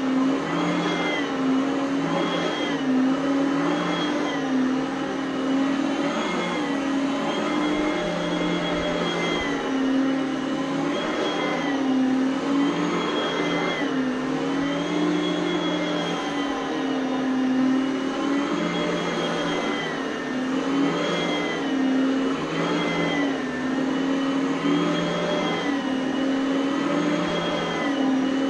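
Oreck Elevate Conquer upright vacuum cleaner running steadily, its motor whine dipping slightly in pitch and recovering about every two seconds.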